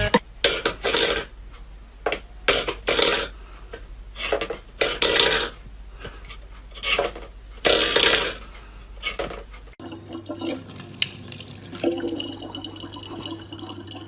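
Water splashing in short, irregular bursts for about ten seconds; then, after a sudden change, steadier running water over a low hum.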